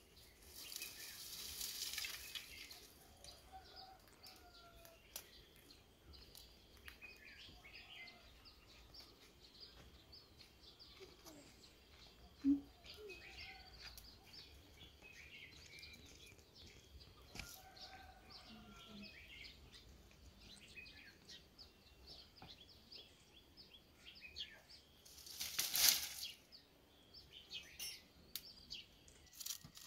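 Scattered bird chirps over quiet outdoor background, with the rustle and crackle of a bundle of dry brushwood being handled: once at the start and more loudly near the end as it is set down.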